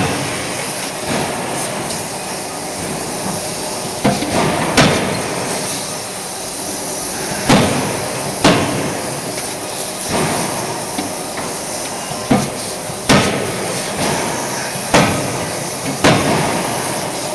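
CNC die forging hammer striking hot workpieces: sharp blows, mostly in pairs about a second apart, every few seconds, over the steady noise of the forging line.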